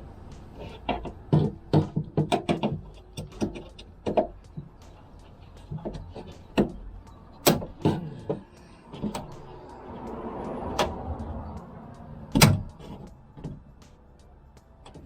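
Repeated clicks, knocks and snaps of a tool prying plastic panel clips out of a Toyota Land Cruiser 120's door moulding, with one loud sharp snap about twelve seconds in.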